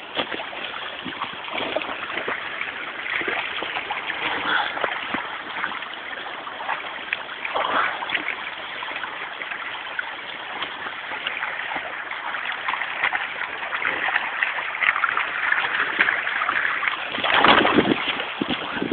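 Shallow brook running over stones while a Rottweiler wades and splashes through it, with scattered small splashes and a louder burst of noise near the end.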